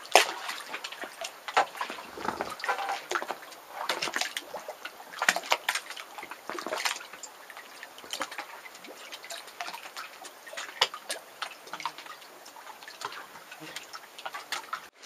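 Small waves lapping and splashing irregularly against shore rocks and a kayak's hull, with little drips and plops.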